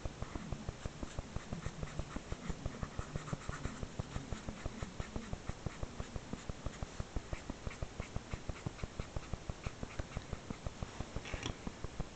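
Felt-tip marker scratching on sketchbook paper in quick, even back-and-forth strokes, about six a second, as a shape is coloured in.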